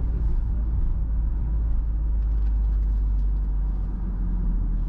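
Steady low rumble of a car being driven: engine and road noise.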